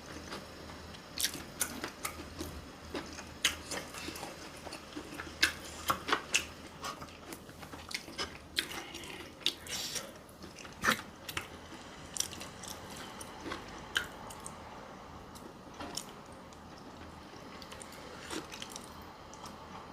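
Close-miked eating: chewing with irregular wet mouth clicks and smacks, thick in the first half and thinning out from about twelve seconds in.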